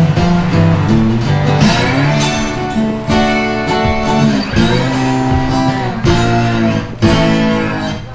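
Background music: guitar playing chords, with a new chord struck every second or so.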